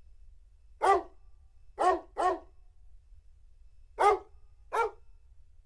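Dog-bark sound effect played on a Casio CT-X9000 keyboard: five short single barks spaced irregularly, two pairs of them coming in quick succession.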